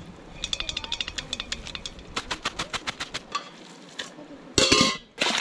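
A stainless-steel colander of drained rice noodles rattling and clicking against the rim of a metal pot as it is shaken out, in quick runs of metallic clicks of about eight a second. A brief loud burst comes near the end.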